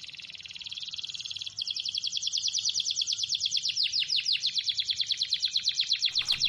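A high, rapidly pulsing insect buzz, cicada-like, that grows louder with more distinct pulses about a second and a half in.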